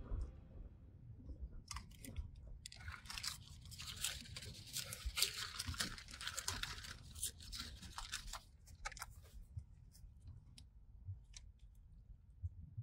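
Paper bag crinkling and rustling for several seconds as it is handled, followed by scattered small crunches and clicks of a puppy eating from a metal bowl.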